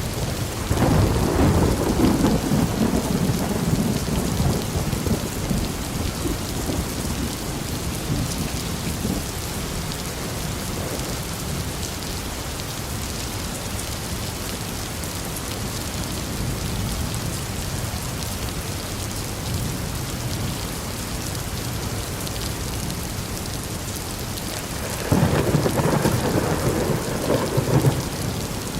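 Steady rain falling in a thunderstorm, with two rolls of thunder: one starting about a second in that rumbles for several seconds and fades, and a second, sudden one near the end lasting a few seconds.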